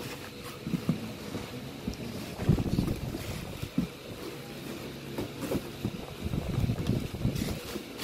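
Helmet packaging being handled in a cardboard box: plastic bag and bubble wrap rustling and crinkling, with uneven bumps against the box.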